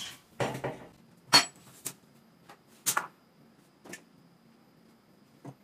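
Metal clanks and knocks from a differential carrier and hand tools being handled around a bare rear axle housing. The hits are separate, with the sharpest about a second and a half in and smaller ones at intervals after it.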